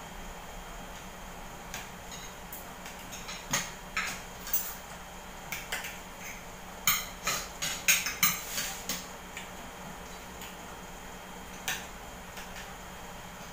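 Spoons and forks clinking against plates as people eat: scattered sharp taps, with a busier run of clinks around the middle, over a faint steady hum.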